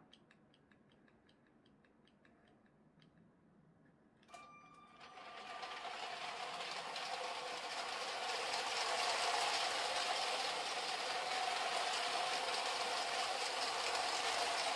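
Lego Powered Up train motor of the 60337 Express Passenger Train starting about four seconds in and running steadily, a small electric motor whirring with the train rolling on plastic track, growing louder over a few seconds and then holding. Before it starts, only faint ticking.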